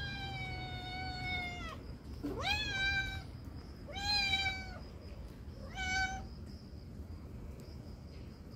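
A cat meows four times: first a long, slightly falling call, then one that swoops up from low, then a shorter one, and last a brief chirp-like meow about six seconds in.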